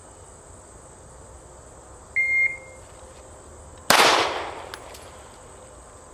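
A shot timer's short electronic start beep, then about 1.75 seconds later a single shot from a Glock 43 9mm pistol with a decaying echo. The gap between beep and shot matches the timer reading of 1.75 seconds.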